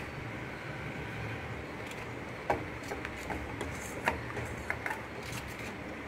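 A steel spoon stirring thin gram flour batter in a stainless steel bowl, with irregular clinks of the spoon against the bowl, the two sharpest about two and a half and four seconds in. A steady low hum runs underneath.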